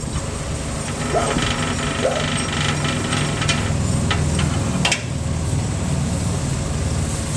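Skid-steer loader engine idling steadily, with a few sharp metallic knocks and a short rattle over it.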